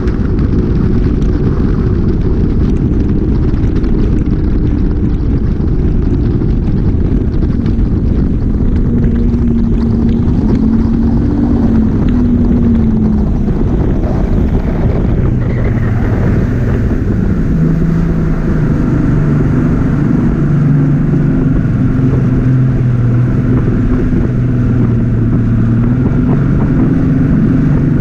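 Bass boat outboard motor running underway, with wind rushing on the microphone. The engine note drops about halfway through as the boat throttles back, and falls again at the very end as it slows.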